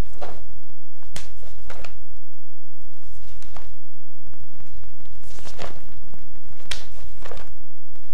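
Cotton karate gi snapping and swishing with the strikes and blocks of a kata, with bare feet sliding on the floor: several short sharp snaps and swishes, unevenly spaced, the sharpest about a second in and near the end. A steady low hum from the tape runs underneath.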